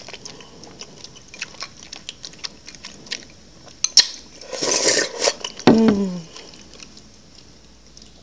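Ambuyat sago starch and fish soup being slurped from a glass bowl, with one loud slurp about five seconds in and small wet mouth and chewing clicks around it. Just after the slurp comes a short hum of the voice that falls in pitch.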